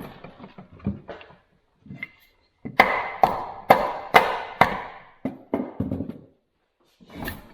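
Hammer blows on the steel body of a Record No. 6 bench vise, knocking a piece out: about five hard, ringing strikes roughly half a second apart midway through, then a few lighter knocks and one more near the end.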